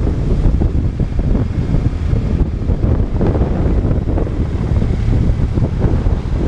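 Wind buffeting a helmet-mounted GoPro's microphone on a moving motorcycle: a loud, steady, low rumbling rush that covers most other sound.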